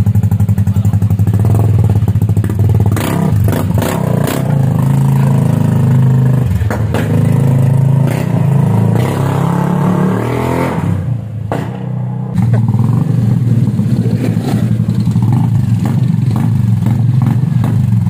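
KYMCO Xciting S scooter engine running through an open-pipe mid-pipe exhaust: a steady, fast-pulsing idle, with its pitch climbing and falling in the middle as the throttle is opened, a brief quieter dip, then settling back to idle.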